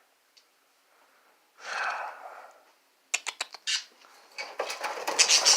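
Pet birds stirring at the cage door: a few sharp clicks, then rustling and fluttering wings building near the end as they start to take off. A soft breathy sound comes before the clicks.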